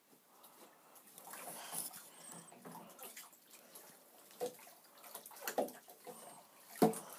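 Shallow bathtub water sloshing and splashing as a ferret swims through it, with a few sharper splashes, the loudest near the end.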